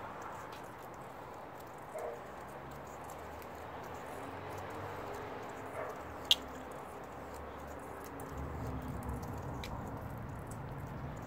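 Quiet outdoor background at night: a steady low hiss with scattered faint clicks and one sharp click a little past the middle. A low rumble comes in near the end.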